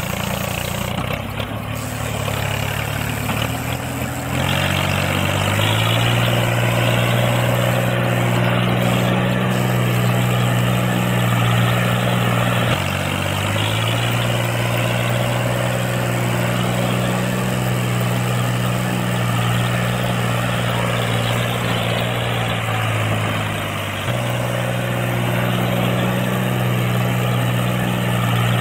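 Small motor of a miniature model water pump running with a steady drone, rising in pitch about five seconds in as it speeds up and dipping briefly twice, with the hiss and splash of the water stream it throws from its outlet pipe.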